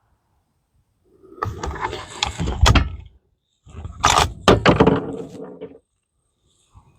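Bolt of a Savage 110 bolt-action rifle being worked between shots: two bursts of metallic clicks and sliding scrapes, the first starting about a second in and the second just before the middle, ejecting the spent case and chambering a fresh round.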